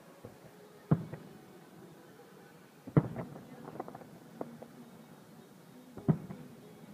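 Distant aerial fireworks shells bursting: three sharp bangs, about a second in, at three seconds and near the end, the middle one followed by a quick run of smaller pops and crackles.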